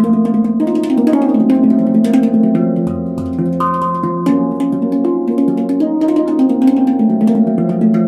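NamiHandpan handpan in an F2 'flamenco hijaz' scale, played with the fingers: a quick, continuous stream of struck notes, each starting with a light tap and ringing on so the notes overlap, with the deep low notes humming underneath. Recorded in a very dry room, so there is little echo.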